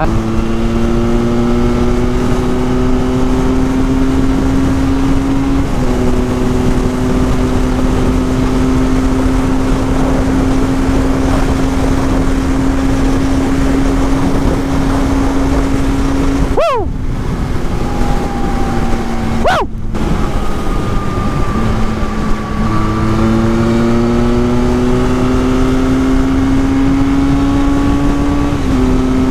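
Benelli 502C's 500cc parallel-twin engine pulling at highway speed, its pitch climbing slowly and dropping sharply at an upshift about six seconds in and again near the end, with a lower, easing stretch in the middle. Heavy wind rush runs under it throughout.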